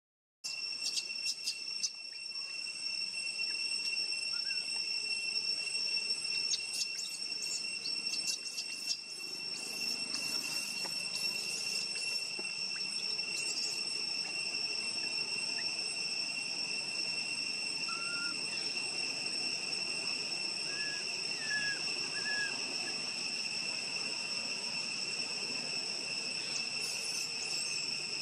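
Insect chorus droning steadily in a high, even tone, with scattered clicks and rustles in the first couple of seconds and again about seven to nine seconds in, and a few short, faint chirps past the middle.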